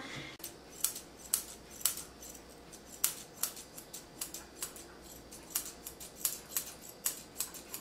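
Grooming shears snipping through the synthetic fur of a dog grooming model: a steady run of crisp snips, about two a second, as the coat is hand-scissored smooth.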